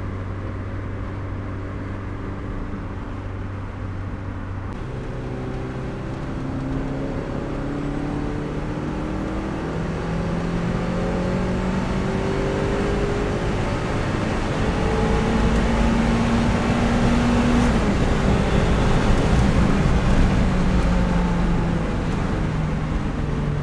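Turbocharged Mazda Miata four-cylinder engine heard from inside the car under 15 PSI boost. It runs steadily at first, then accelerates, its pitch climbing and dropping back at gear changes, twice in the later part, growing louder as it pulls.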